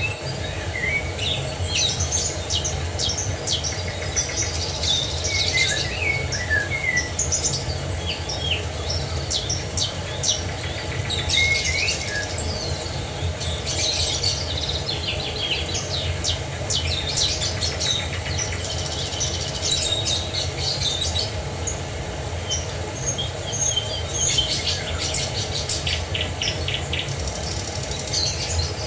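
Several songbirds chirping and singing in quick, overlapping phrases over a steady low rush of falling water.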